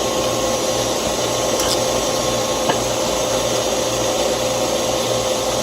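Steady machine drone with a constant mid-pitched whine, and one or two faint clicks partway through.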